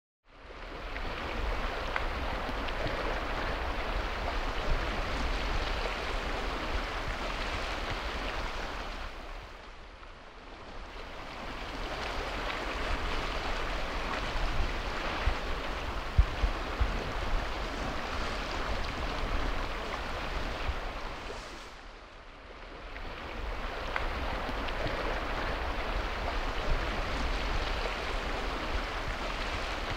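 Sea waves washing in as a steady hiss that fades away twice and swells back up.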